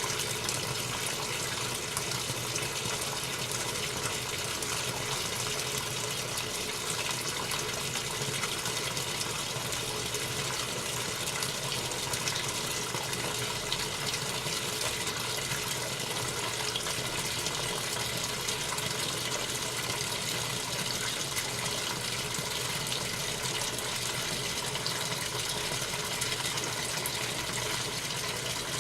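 Washing machine with a steady rush of water running in it, even and unbroken, with a few faint steady tones beneath.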